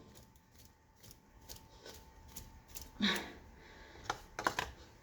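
Light clicks and scrapes of kitchen utensils and containers being handled while mixing ingredients, with a short louder knock about three seconds in and a quick run of clicks a second later.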